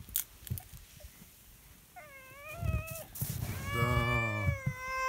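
Cat meowing in long, drawn-out cries held on a steady high pitch: a short one about two seconds in, then a longer one from about three seconds in that is still going at the end. A couple of faint clicks come near the start.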